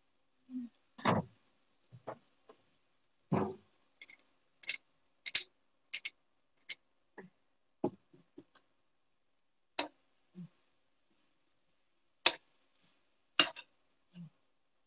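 A cooking utensil clinking and knocking against a frying pan of sautéed cabbage and minced beef: scattered sharp clicks at irregular intervals, a little over one a second.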